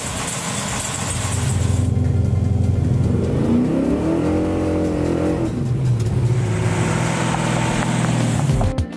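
Super Bee's 572 cubic inch Hemi V8 running loud, with a rush of noise in the first two seconds, then revving up and back down about midway, then running steadily until it cuts off near the end.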